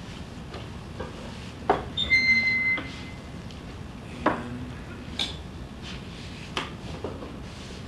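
Kitchen utensils knocking and clinking on a counter: scattered sharp taps of a knife and dishes on a cutting board, and about two seconds in a clink that rings briefly, the loudest sound.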